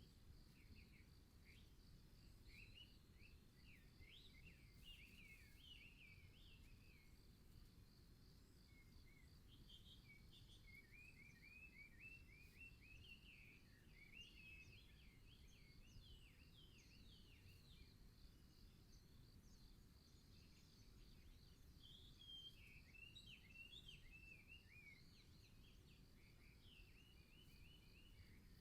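Faint songbirds chirping in three bouts of quick, high notes, over a steady high-pitched whine and a low rumble.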